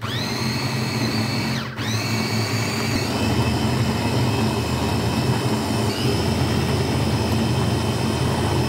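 Small electric food processor running as it purees frozen banana slices: a steady motor whine that cuts out for a moment a little under two seconds in, then runs on, its pitch stepping up slightly about three seconds and again about six seconds in.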